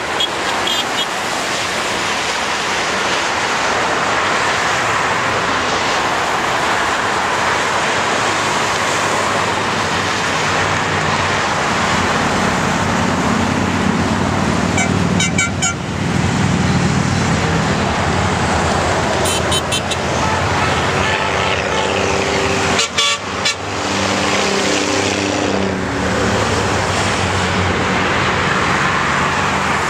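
Steady freeway traffic noise, with tyres on a wet road. About halfway through, a group of motorcycles and other vehicles passes below with a rise in engine rumble. Vehicle horns sound a few seconds later.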